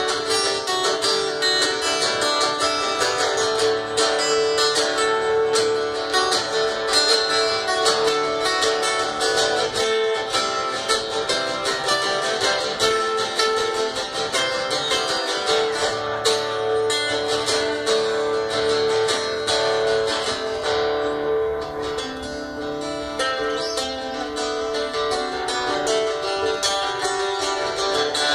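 Three acoustic guitars played live together in an instrumental jam, strummed and picked without a break.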